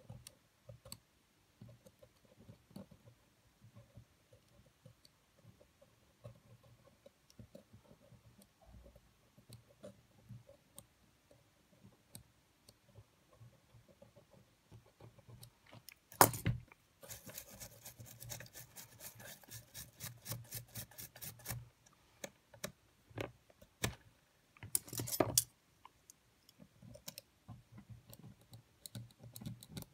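Small metal tools clicking and scraping against the tape mechanism of an opened Sony EX999 cassette Walkman during repair. There is a loud click about sixteen seconds in, followed by a run of rapid, evenly spaced clicks, several a second, lasting about four seconds, and a short rattle near the end.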